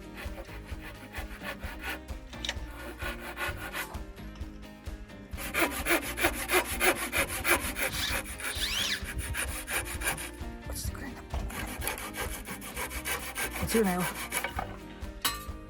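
Hand saw cutting through wood in quick, even back-and-forth strokes, getting louder about five seconds in.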